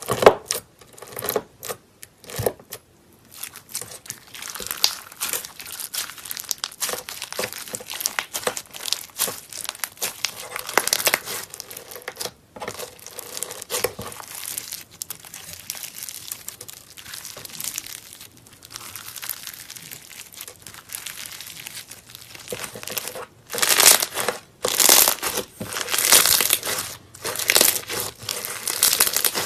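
Slime being squeezed and kneaded by hand, making a dense run of small crackles and pops, with louder bursts in the last six seconds.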